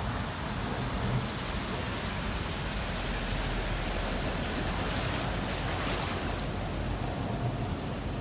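Muddy floodwater rushing in a steady, unbroken flow through a street and over the pavement during a cloudburst.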